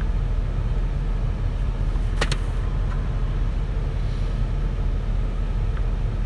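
Ford F-350 pickup's engine idling steadily, a low rumble heard from inside the cab, with one brief sharp click about two seconds in.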